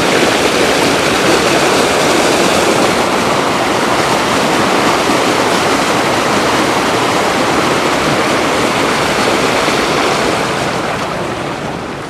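Rain-swollen pond overflowing, its water pouring over the edge in a steady rush like a small waterfall. It grows quieter over the last two seconds.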